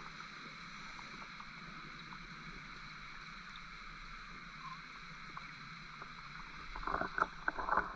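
Underwater recording: a steady hiss with faint scattered ticks, then, about seven seconds in, a scuba diver's regulator exhaling a loud, irregular burst of bubbles.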